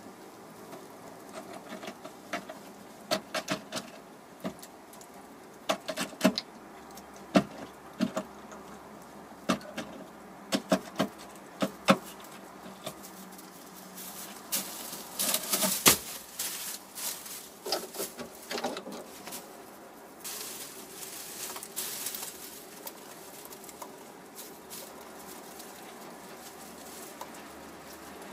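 A hen pecking and shuffling in a straw-lined nest box while breaking into and eating an egg: irregular sharp taps for the first ten seconds or so, then louder rustling of straw twice.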